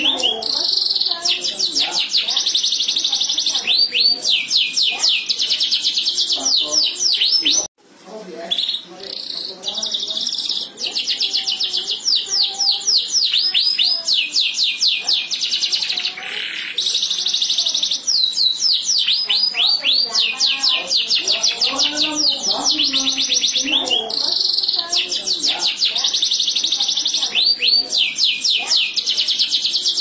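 Domestic canary singing a long, continuous song of fast rolling trills and rapidly repeated sweeping notes. The song stops abruptly for a moment about eight seconds in, then carries on.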